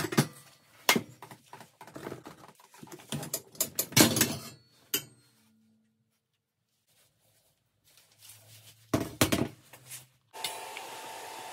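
Stainless steel exhaust manifold pipes clunking and knocking against each other and a steel-topped table as they are handled, with a quiet gap in the middle. About a second before the end a steady hiss with a faint even tone starts: a TIG welding torch arc.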